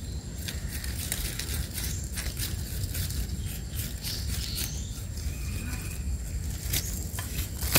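Faint, scattered scraping and light clicks: a knife blade scraping soil off the long stem of a freshly dug termite mushroom.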